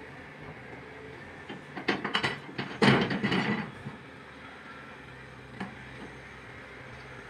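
A burst of clattering knocks and scrapes about two seconds in, over a steady low hum, with one more single knock a little later.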